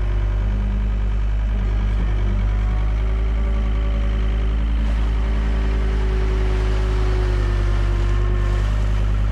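Excavator's diesel engine running steadily under load, with a held whine on top that drifts slightly in pitch.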